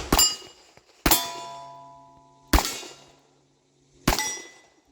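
Four revolver shots about a second to a second and a half apart, each followed at once by the ring of a struck steel plate fading away. The shots are .38 Special, fired from a Smith & Wesson 686-5 Power Port.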